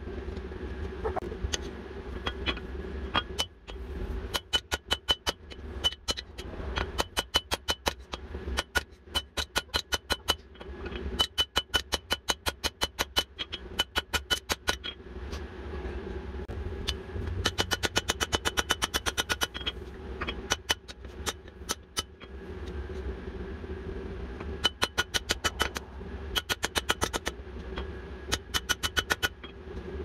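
Hand hammer striking red-hot jackhammer-bit steel on an anvil, drawing out a taper: quick runs of ringing blows, several a second, broken by short pauses as the piece is turned. A steady low hum runs underneath.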